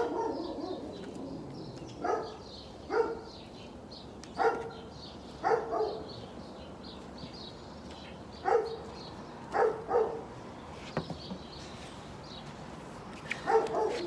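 A dog barking in single barks at uneven gaps of one to three seconds, with a pause of a few seconds in the middle. Small birds chirp steadily underneath.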